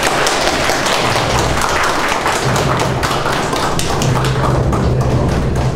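A small group of people applauding, with steady clapping throughout.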